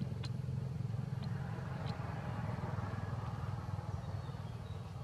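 A steady low engine drone, like a motor vehicle running, with a few faint ticks in the first two seconds.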